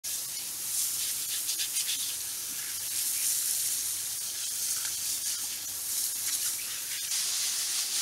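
Garden hose spray nozzle jetting water onto the water in a concrete bird bath basin, a steady hiss of spray and splashing.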